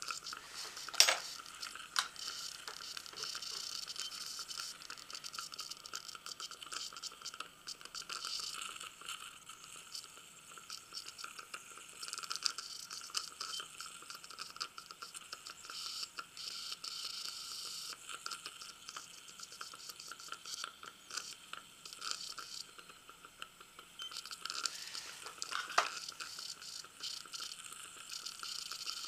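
Dental saliva ejector sucking steadily in the patient's mouth, a hiss with wet crackling gurgles, while dental instruments work on the teeth. There is a sharp click about a second in and another near the end.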